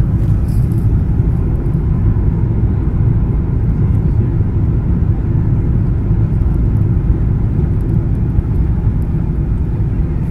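Steady low rumble of cabin noise in a Boeing 777-300ER airliner: its GE90 jet engines and the rushing air, heard from inside the cabin at a window seat.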